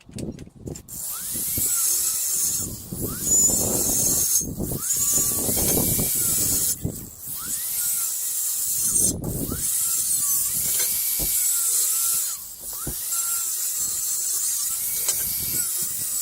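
Hand saw cutting through steel box section: a rasping, metal-on-metal sound in steady back-and-forth strokes, with a brief break about every two seconds.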